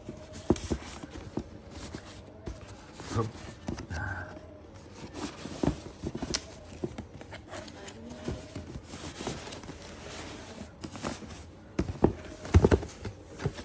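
A cloth drawstring bag rustling as a cardboard shoebox is handled and pulled out of it, with irregular scraping and knocking of the box and a cluster of sharper knocks near the end.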